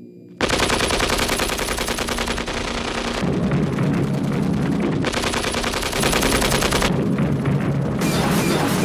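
Loud rapid clattering, a dense stream of sharp hits, starting suddenly about half a second in and shifting abruptly in tone several times.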